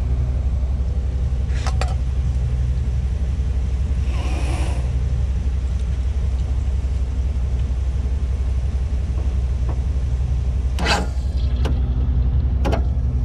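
Riding lawn mower's small engine running steadily at a low pitch, with a few sharp clicks and a hiss of about a second roughly four seconds in.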